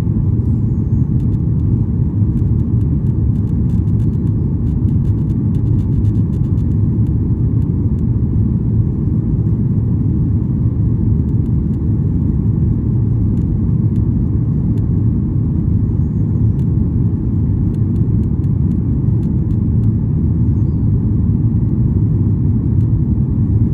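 Steady low rumble of a Boeing 737-800's CFM56 engines and airflow, heard inside the passenger cabin, holding even throughout.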